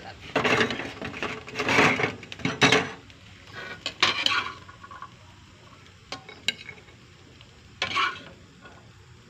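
A metal spatula scraping and stirring fried rice in a metal wok, in several loud bursts over the first half. A little after the middle come two sharp clicks, and one more scrape near the end as rice is scooped out onto a plate.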